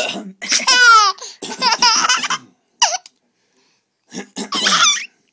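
A baby laughing in several bursts: a high squeal falling in pitch about a second in, then a run of short laughs, and a last burst of laughter near the end.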